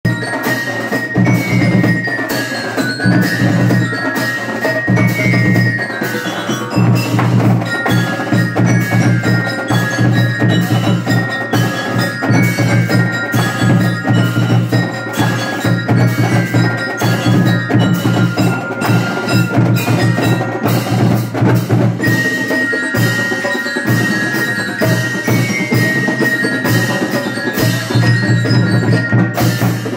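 Marching band percussion playing: snare, tenor and bass drums keep a steady beat under a melody of bright bell-like notes on mallet instruments such as glockenspiels.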